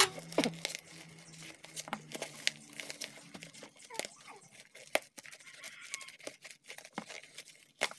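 Scissors snipping into plastic parcel wrapping, with the plastic crinkling and tearing as it is cut and handled: a scattered series of short snips and rustles.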